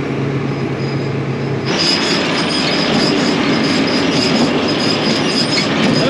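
Tractor engine running, then a little under two seconds in the PTO is engaged and the John Deere L340 large square baler starts running: a sudden, steady mechanical clatter with a thin high squeal over it.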